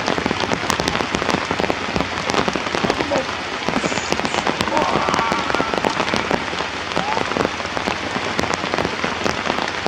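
Steady rain falling and pattering densely on surfaces. Faint short high calls rise through it about five and seven seconds in.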